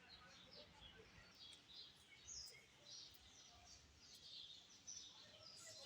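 Faint chirping of many small birds: quick, short overlapping calls over low, steady background noise.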